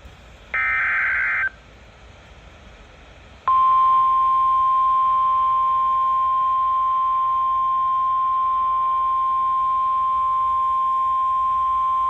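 The last of the NOAA Weather Radio SAME header data bursts, a second-long buzzy digital screech. About two seconds later the 1050 Hz weather radio warning alarm tone starts, one steady tone held for about nine seconds and cutting off at the end, ahead of the severe thunderstorm warning announcement.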